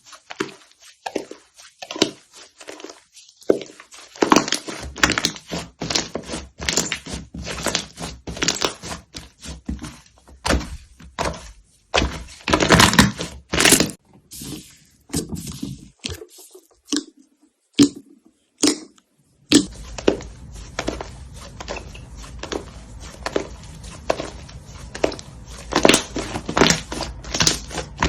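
Slime being pressed, poked and squished by hand, giving rapid irregular crackling clicks and pops with a few short lulls. Partway through, a steady low hum comes in underneath.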